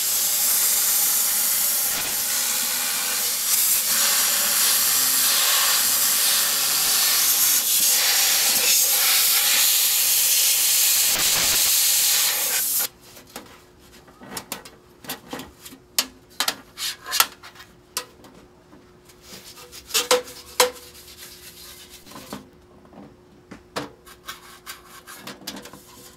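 Compressed air hissing out of an air nozzle as it blows the caked dust out of a furnace blower's squirrel-cage wheel, vane by vane. The hiss stops abruptly about halfway through and is followed by a scatter of light knocks and clicks.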